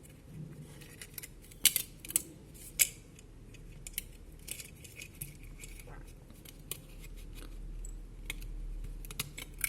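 Small plastic and metal phone parts and tools being handled during a teardown: scattered sharp clicks and taps, the loudest two about two and three seconds in.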